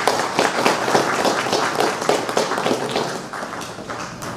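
Audience applauding: many hands clapping, thinning out toward the end.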